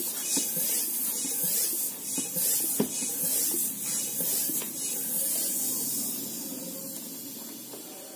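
Bicycle pump forcing air through a hose and valve into a sealed plastic bottle, pressurizing it: a hiss of air with each stroke, about one a second, then a steadier hiss that fades away over the last few seconds.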